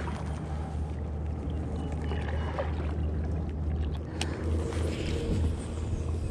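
Steady low wind rumble on the microphone over a kayak on open water, with one sharp click about four seconds in.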